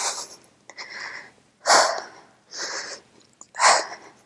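A woman breathing hard while doing one-arm dumbbell rows: three sharp exhales about two seconds apart, with quieter inhales between.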